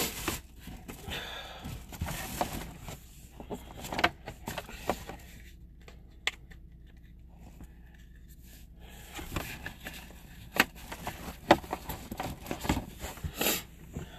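Irregular clicks, knocks and rustling, with a quieter stretch in the middle and a few sharper knocks near the end.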